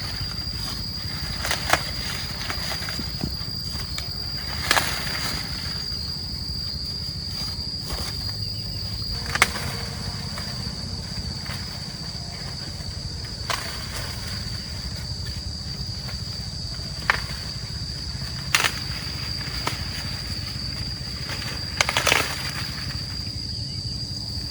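Sharp snaps and crackles every second or few, irregularly spaced, over a steady high-pitched whine and a low rumble.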